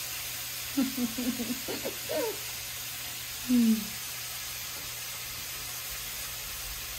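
Steady hiss of oxtail sizzling as it browns in a pot on the stove. Brief murmured voices come in about a second in, and a short hum near the middle.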